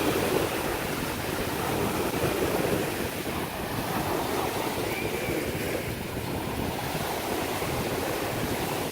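Steady wash of Gulf surf with wind noise on the microphone.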